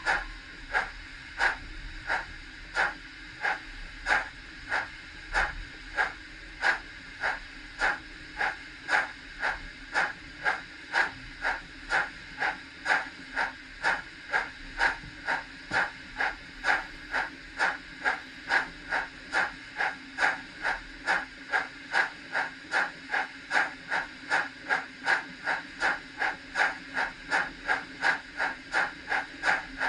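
Rapido Stirling Single model steam locomotive's onboard sound chuffing in time with its synchronised smoke puffs, a short hiss on each beat. The beat quickens gradually from about one a second to nearly two a second.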